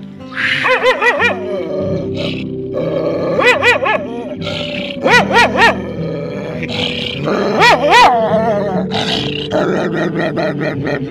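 A dog calling out in a series of drawn-out vocal calls whose pitch wobbles rapidly up and down, about four times with short pauses between, with fainter grumbles near the end.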